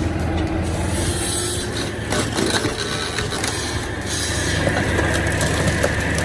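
Engine-driven firewood processing machinery running, a steady low drone with wood knocking and scraping through it.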